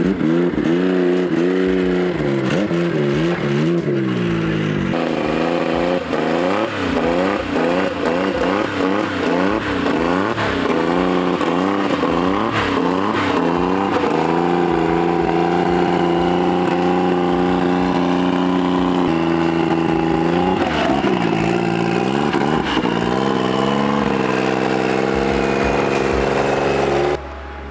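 Racing snowmobile engines revving, their pitch rising and falling again and again as the sleds accelerate and pass, with the sound changing abruptly a few times.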